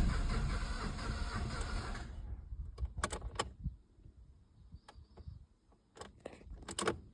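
Opel Astra H 1.7 diesel engine cranking without catching, fading and stopping about two seconds in. A handful of sharp clicks follow, like a key being handled in the ignition.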